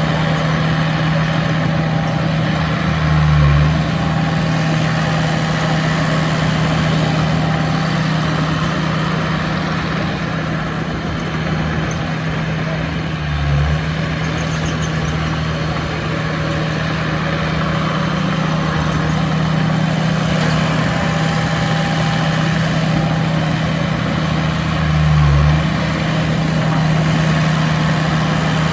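Heavy diesel engine of earthmoving machinery running steadily, with a low swell in its note three times: about three seconds in, near the middle, and most strongly near the end.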